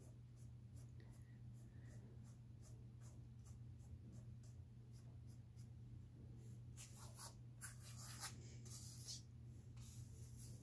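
Flat paintbrush brushing across stretched canvas: a run of short scratchy strokes starting about two-thirds of the way in, over a faint steady low hum.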